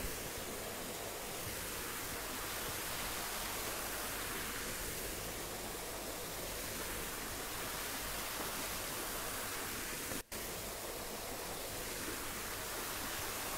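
Steady, even hiss of background noise, cut by a very brief dropout about ten seconds in.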